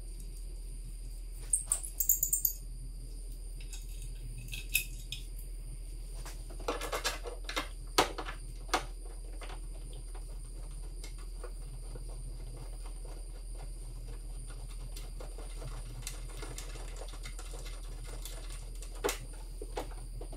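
Scattered light metallic clinks and taps as parts and hardware are handled and test-fitted by hand at a car's cowl and strut towers. They come in a few short clusters, the busiest about two and seven seconds in, over a steady low hum.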